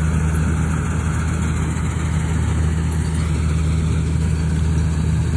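Combine harvester's diesel engine running steadily while it cuts and threshes rice, a constant low drone.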